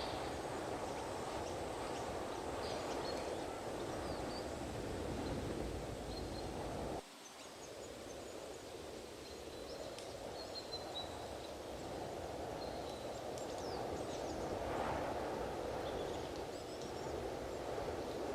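Strong wind buffeting the microphone, a dense low rumble that drops away suddenly about seven seconds in and then builds back up. A few faint high chirps sound over it.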